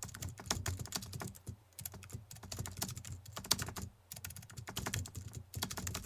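Computer keyboard typing: a fast, continuous run of key clicks, with brief lulls about two and four seconds in.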